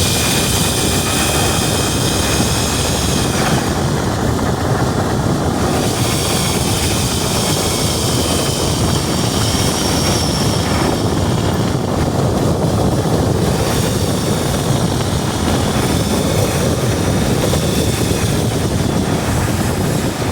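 Steady road and wind noise of a car being driven, a continuous roar of tyres and airflow.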